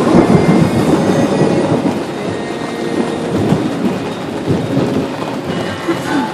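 A long roll of thunder rumbling heavily, gradually fading over several seconds.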